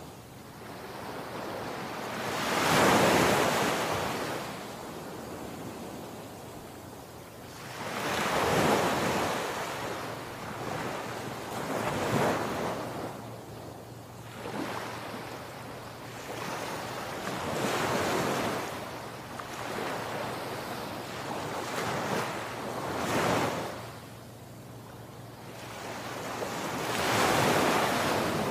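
Sea surf breaking and washing up a sandy beach, the sound swelling with each wave about every four to six seconds.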